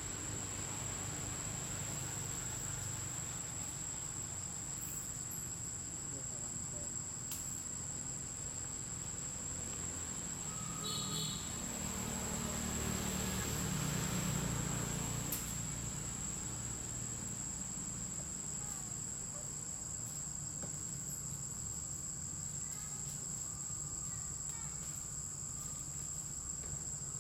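Steady high-pitched drone of insects, one unbroken shrill tone, over a low rumble that swells about halfway through.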